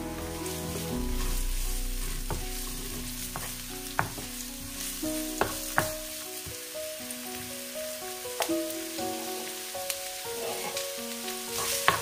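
Chopped onions sizzling in hot oil in a nonstick frying pan, stirred with a wooden spoon that knocks against the pan now and then.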